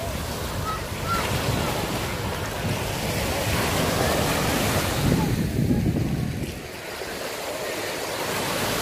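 Small sea waves lapping and breaking on a sandy shore, rising and falling in slow swells, with wind rumbling on the microphone.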